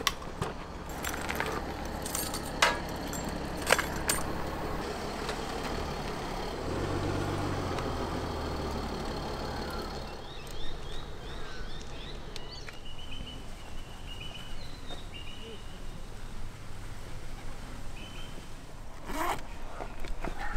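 A vehicle engine hums low and steady, with two sharp clicks and jingles a few seconds in. About halfway through the hum stops and birds chirp.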